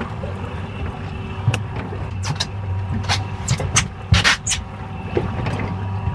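Boat engine idling with a steady low hum, with a cluster of sharp slaps and knocks about two to four and a half seconds in.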